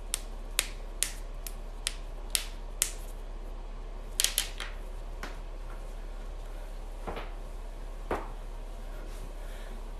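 Joints cracking: a run of sharp pops at about two a second, a quick cluster of three a little after four seconds in, then a few single pops spaced further apart.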